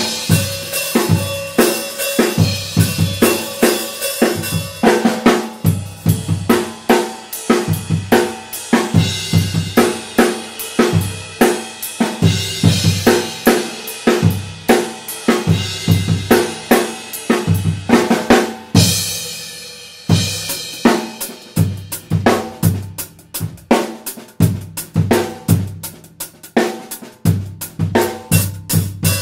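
Drum kit played with sticks: a steady groove of snare and bass drum under Sabian HH and HHX cymbals, hi-hat and ride strokes, with a crash ringing out a little past halfway.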